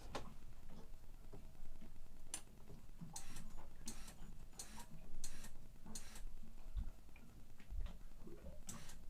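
A series of short, sharp clicks and ticks at uneven intervals, several coming in quick succession in the middle.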